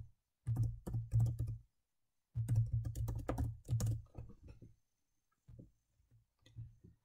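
Typing on a computer keyboard: two quick runs of keystrokes, then a few single keystrokes near the end.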